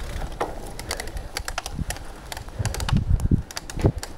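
Bicycle bottom bracket creaking as a run of sharp, irregular clicks while the bike is ridden over a dirt trail, with a low rumble from the ride underneath. The creaks are the sign of a bottom bracket that needs servicing.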